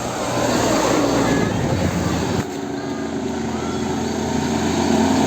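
Roadside traffic noise with a large bus engine running as it passes, a steady low hum under road noise. The level drops suddenly about two and a half seconds in.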